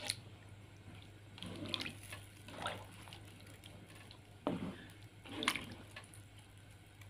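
Spatula stirring coconut-milk curry in a non-stick pan: a handful of short wet swishes and sloshes about a second apart, over a low steady hum.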